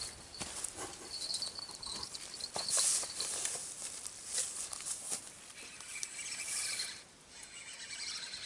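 Footsteps crunching and rustling through dry grass and twigs, as uneven clicks and rustles.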